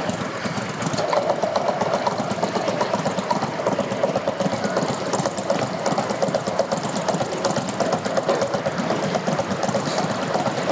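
Outboard motor on a flat-bottom jon boat running steadily in the water, a rapid even beat that grows a little louder about a second in.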